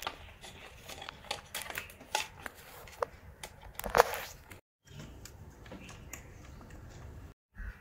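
A hand screwdriver driving a screw through a plastic helmet mount and a pad into a wall plug: small irregular clicks and scrapes of the tool and parts, with one louder scraping knock about four seconds in.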